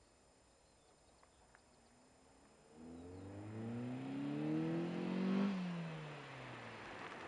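Citroën C4 VTS's 2.0-litre 16-valve four-cylinder petrol engine revving: after a quiet start, the engine note climbs steadily in pitch and loudness, peaks about five and a half seconds in, then drops back down.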